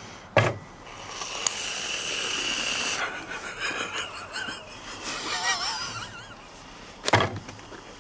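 Aerosol whipped-cream can spraying into a mouth: a steady hiss for about two seconds, then uneven spurts as the spray goes on. A sharp knock comes about half a second in and another near the end.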